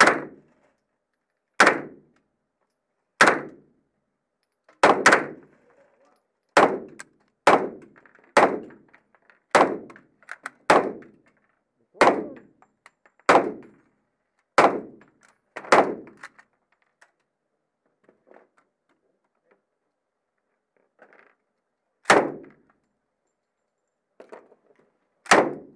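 Single gunshots fired one at a time at a steady pace, roughly one to one and a half seconds apart, each a sharp crack with a short echoing tail. After about fifteen seconds there is a pause, then two more shots near the end.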